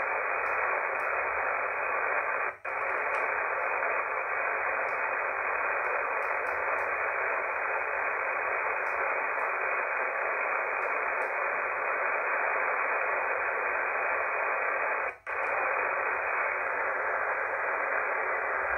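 RadioBerry software-defined radio receiver's audio output on the 40-metre band: a steady static hiss held to a narrow band of pitches, with no station heard. It drops out briefly twice, once about two and a half seconds in and again near the end.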